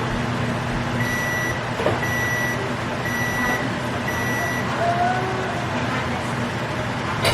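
A kitchen appliance's electronic beeper sounding four evenly spaced high beeps, about one a second, over a steady electrical hum.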